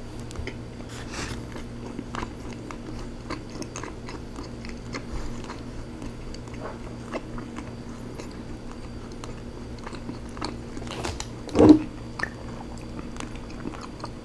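Close-miked mouth sounds of a person chewing rotisserie chicken: soft wet smacks and small clicks over a steady low hum. There is one louder mouth sound near the end.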